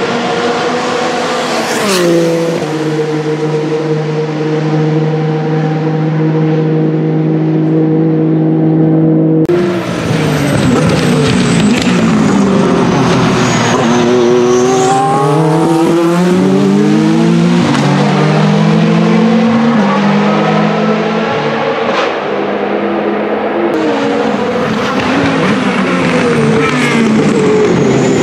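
Isotta Fraschini Tipo 6 LMH-C prototype's 3.0-litre hybrid V6 racing engine passing at speed, its pitch dropping sharply about two seconds in and then holding steady. After a cut near ten seconds in, the engine note repeatedly falls as the car slows for corners and climbs again as it accelerates away.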